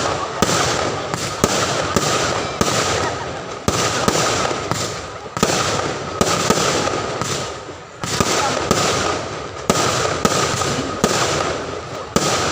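Fireworks display: aerial shells bursting one after another, about one sharp bang a second over continuous crackle and rumble.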